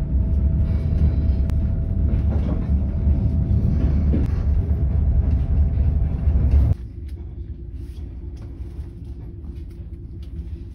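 Passenger train carriage running along the rails, heard from inside: a loud steady rumble that cuts off suddenly about seven seconds in to a quieter rumble with a steady hum.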